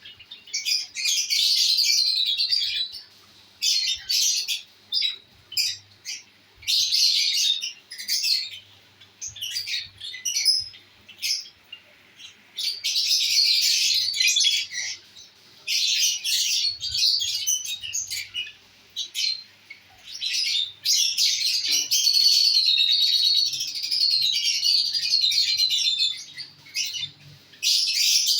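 Pet lovebirds chattering with shrill, high-pitched chirps and squawks in repeated runs of a second or more, broken by short pauses.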